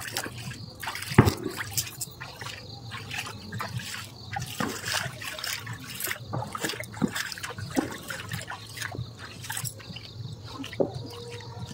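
Water splashing and trickling in small, irregular splashes, with one sharper splash about a second in.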